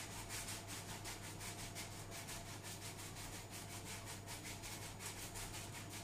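Icing sugar being sifted by hand over pastries: a quiet, dry, rhythmic rubbing hiss of about five strokes a second.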